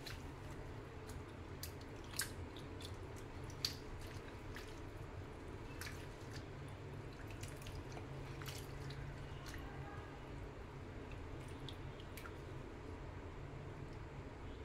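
A hand swishing and squeezing mint and coriander leaves in a bowl of salted water: small splashes and drips, with a couple of sharper splashes between two and four seconds in, over a steady low hum.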